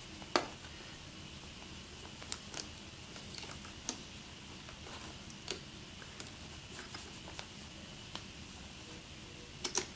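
Scattered small clicks and taps of hard plastic parts being handled as an amplifier and its antenna connection are fitted onto a DJI Phantom remote controller. The loudest click comes just after the start, and a quick double click comes near the end.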